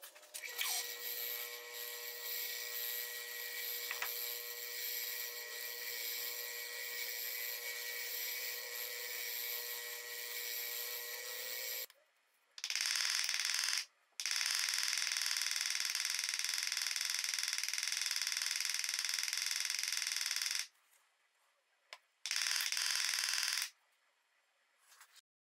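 Bench buffer with cloth buffing wheels running: a steady machine hum with a fixed whine, lasting about twelve seconds. After that come several stretches of loud, even hiss that start and stop abruptly, with quiet gaps between them.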